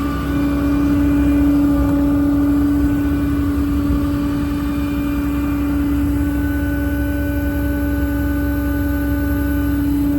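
Hydraulically driven air compressor on a service truck body running steadily just after being switched on, with the truck's 6.7 Cummins diesel engine running beneath it. A loud, even hum that holds one pitch.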